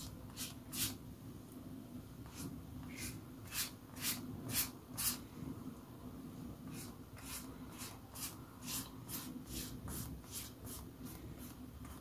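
Silicone pastry brush sweeping oil across a thinly rolled sheet of samosa pastry dough in soft, quick strokes, coming in short runs of about two a second. A faint steady low hum runs underneath.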